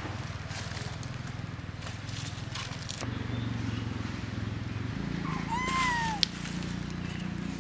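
A long-tailed macaque gives one short coo call, rising then falling in pitch, a little past the middle, followed at once by a sharp click. A steady low hum and faint scattered clicks run underneath.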